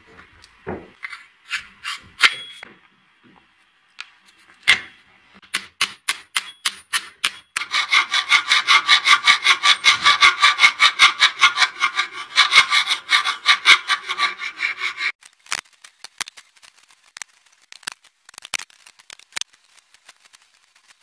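A hand file rasping a wooden sword handle in quick, even strokes, about five a second, through the middle of the stretch; it is the loudest sound. Before it come scattered clicks and knocks of metal fittings being handled, and after it only faint light ticks.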